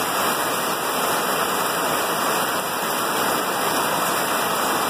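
Heavy rain pouring down, a dense, steady hiss of the downpour.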